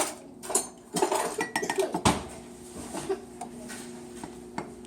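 Kitchen dishes and utensils clattering: a run of knocks and clinks in the first three seconds, the loudest about two seconds in, over a steady low hum.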